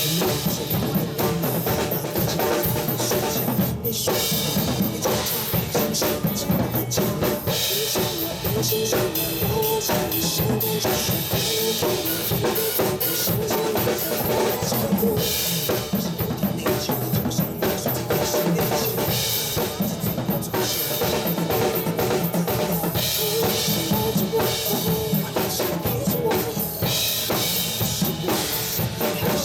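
Music with a drum kit playing steadily throughout.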